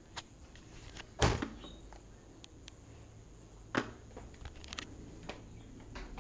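A spoon knocking and clicking as a dog eats peanut butter off it: two louder knocks, a little over a second in and near four seconds in, among lighter clicks.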